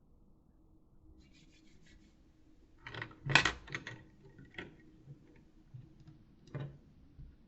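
A handful of short rubbing and scraping sounds. Faint scratching comes about a second in, a louder cluster about three seconds in, and two single scrapes later.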